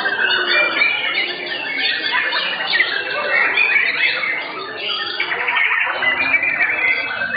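Several caged white-rumped shamas singing at once, a dense, unbroken tangle of overlapping whistles, trills and quick pitch slides.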